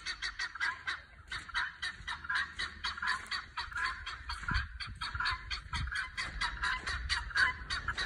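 A flock of guinea fowl giving their alarm call: harsh, rapid chattering at about six calls a second, several birds overlapping.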